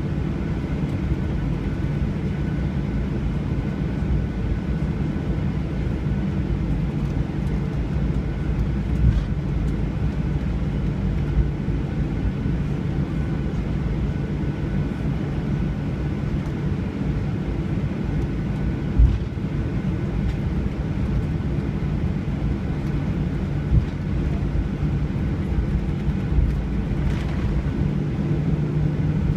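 Airliner cabin noise: a steady low drone from the jet engines and airflow, heard from inside the passenger cabin, with a few brief thumps.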